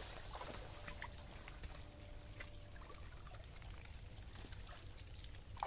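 Faint water trickling and dripping as a bamboo-slat fish trap is lifted out of a shallow stream, with scattered small drips and splashes.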